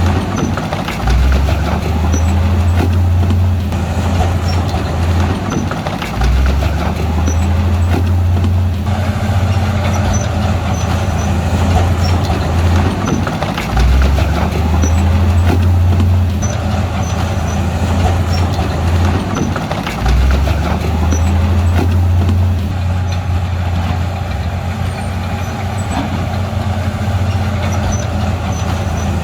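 Heavy diesel engine of a bulldozer working under load. Its low note surges and eases every six to seven seconds, over a steady clatter.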